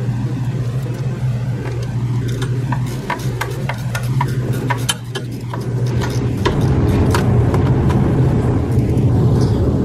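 Hand ratchet clicking in short runs while the belt tensioner's mounting bolts are tightened, over a steady low machine hum that grows louder about six and a half seconds in.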